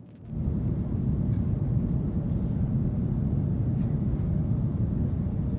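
Low rumble inside an Airbus A330-300's cabin, starting abruptly about a quarter-second in and then running steadily: the aircraft on its landing roll.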